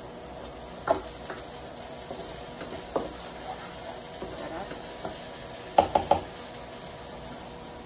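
Oil sizzling steadily in a nonstick wok as a wooden spatula stirs. The spatula knocks against the pan a few times, with a quick run of three clacks about six seconds in.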